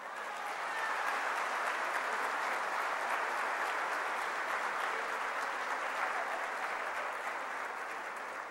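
Audience applauding, swelling over the first second, holding steady, then slowly dying away near the end.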